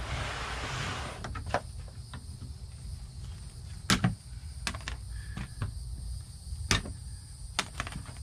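Insects trilling steadily at a high pitch in the background, with a short burst of rustling in the first second and a scattering of sharp clicks and knocks of handling.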